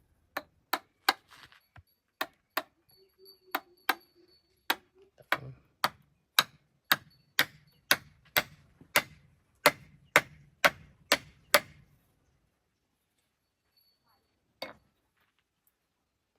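Hand hammer blows in a steady rhythm, about two strikes a second, some harder than others, stopping about twelve seconds in, then one last strike a couple of seconds later.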